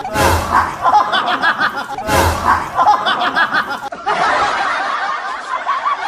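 A looped laughter sound effect: the same short laugh repeats about every two seconds, then a different stretch of laughter takes over about four seconds in.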